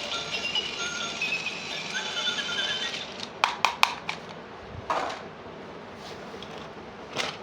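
Small plastic toy pieces being handled: a quick run of about four sharp clicks, a softer tap about five seconds in, and one more click near the end, over faint high tones in the first few seconds.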